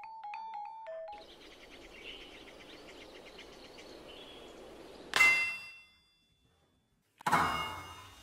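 A few notes on a Balinese wooden xylophone, then a steady hiss with faint quick tapping. Then a blacksmith's hammer strikes hot metal on an anvil twice, about two seconds apart, each blow a loud metallic clang that rings on.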